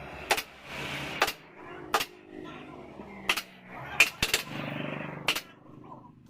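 Upholstery staple gun firing single shots, about seven sharp snaps at irregular intervals, as fabric or padding is stapled to a sofa frame.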